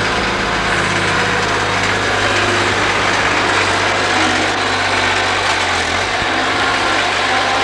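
Engine of a snow-plowing vehicle running close by with a steady low hum that fades about six seconds in.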